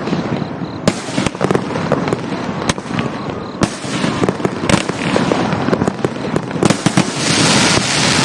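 A 1.5-inch 25-shot firework cake firing, giving a dense, irregular run of sharp pops and crackles, with a louder hissing crackle swelling about seven seconds in.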